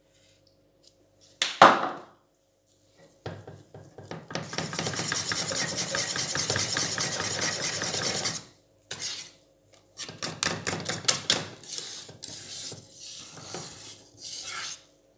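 Wire whisk working thick Mornay sauce in a stainless steel saucepan: a short knock about a second and a half in, then a continuous rasping scrape for several seconds, then separate, irregular strokes.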